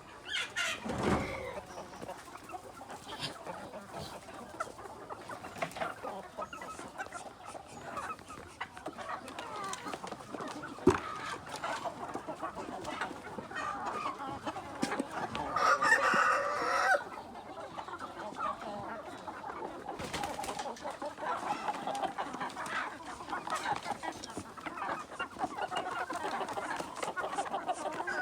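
A flock of village chickens clucking continuously, with a rooster crowing once, loud and drawn out, about halfway through. A single sharp knock sounds a little before the crow.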